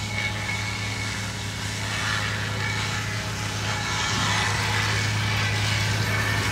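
A concrete mixer lorry's engine running steadily, a little louder from about four seconds in.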